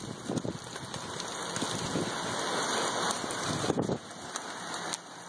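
Heavy rain mixed with hail pouring onto pavement: a dense, steady hiss of rain with many scattered impacts of hailstones, easing briefly about four seconds in.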